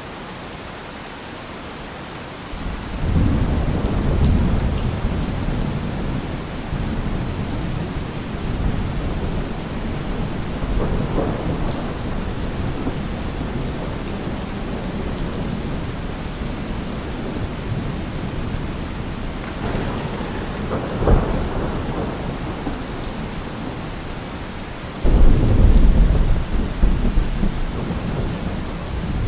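Steady heavy rain with rolling thunder: a long deep rumble builds about three seconds in, a sharper crack comes after about twenty seconds, and a loud rumble starts suddenly near the end.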